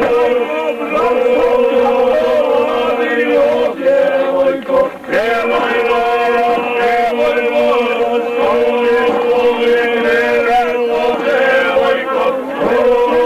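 Men singing a chant-like folk song together: a steady held drone note under a wavering melody.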